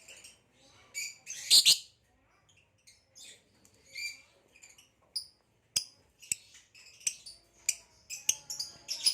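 Nyasa lovebirds chirping: a string of short, high chirps and twitters, with a louder harsh burst about one and a half seconds in and a few sharp clicks among them.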